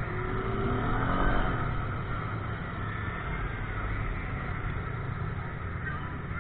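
Vehicle engine running steadily, with a brief rising rev about a second in.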